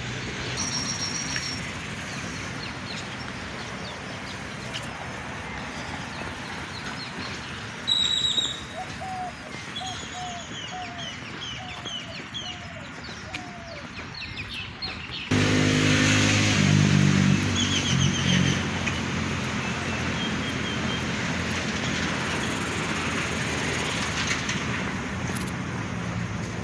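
Birds chirping in short, quick series of high notes, with a lower call repeated about once a second for several seconds, over steady outdoor traffic noise. About halfway the background abruptly grows louder, with a low hum.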